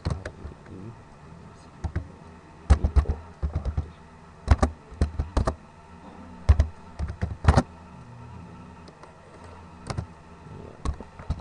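Computer keyboard being typed on: irregular clusters of key clicks with short pauses between them, over a faint steady low hum.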